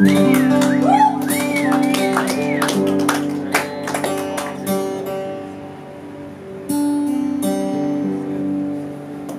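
Steel-string acoustic guitar picked and strummed, with open strings left ringing in long sustained notes, as it is tuned up between songs. A wavering whistle-like tone rises and falls over the first few seconds, and a louder strum comes near the end.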